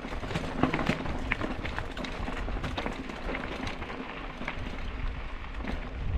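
Bicycle tyres rolling over a loose gravel dirt track: a steady crunch of stones with irregular clicks and rattles from the bike.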